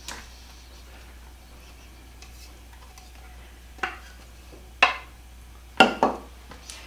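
Wooden spoon knocking and scraping against a plastic container and mixing bowl as shredded cooked chicken is scraped out into a bowl of pasta sauce: a sharp tap at the start, then four more from about four seconds in, two of them close together, with quiet between.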